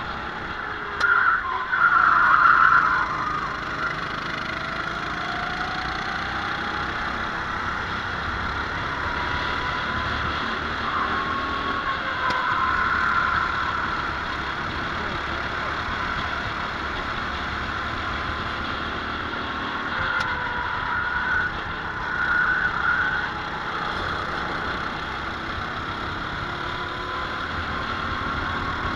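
Racing kart engine running hard, heard from an onboard camera on the kart, its pitch sliding up and down as the driver accelerates and lifts through the corners. It surges louder about a second in, again around twelve seconds, and twice between twenty and twenty-three seconds.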